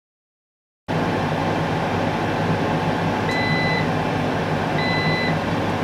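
After about a second of dead silence, a Cosori Dual Zone air fryer runs with a steady fan whir and a low hum. Two half-second beeps sound about a second and a half apart: the fryer's reminder to shake the food.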